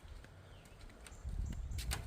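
Footsteps of a hiker walking along a trail, under a steady low rumble, with a couple of sharp clicks a little before the end.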